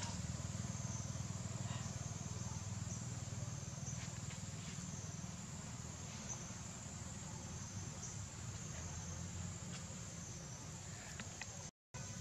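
A steady, high-pitched insect chorus that wavers slowly in level, over a low rumble of outdoor ambience. The sound cuts out for a moment near the end.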